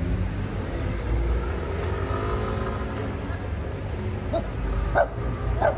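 Steady low rumble of road traffic with a car engine running close by. A few short, sharp sounds come near the end.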